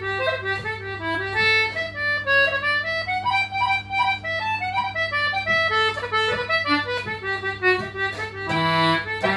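Anglo concertina playing a reel at a slow tempo, a continuous run of reedy notes with quick grace-note flicks on the high notes.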